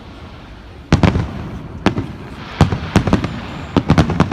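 Aerial firework shells bursting in a string of about seven sharp bangs, starting about a second in and coming closer together near the end.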